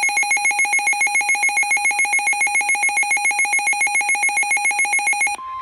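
A weather radio receiver's electronic alert alarm, a buzzy tone warbling rapidly between two pitches about five or six times a second, sounding for an incoming warning. Just before the end it cuts off and the steady, single-pitch NOAA Weather Radio warning alarm tone begins.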